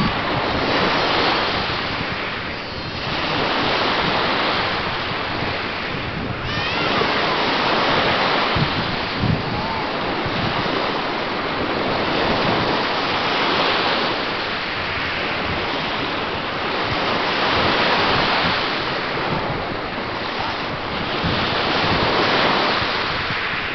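Small Lake Michigan waves breaking and washing up onto a sand beach, the surf swelling and easing every few seconds. Wind buffets the microphone.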